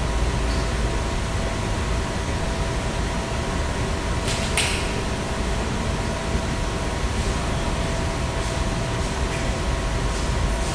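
Steady background noise of a machine shop: a constant rushing hum with a low rumble and two faint steady tones, broken by one short hiss about four and a half seconds in.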